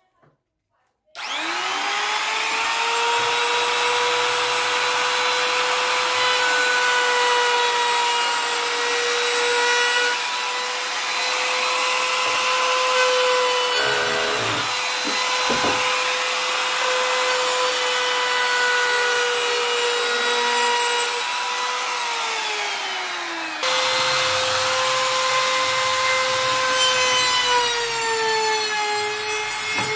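Handheld trim router (compact wood router) starting up about a second in and running at high speed with a steady high whine, rounding over the edges of a wooden board; its pitch sags as the bit bites into the wood, most near the end.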